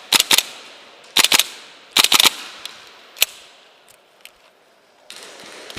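Airsoft guns firing short bursts of sharp cracks, two to four shots at a time about a second apart, then a single shot a little after three seconds in and a few faint distant shots.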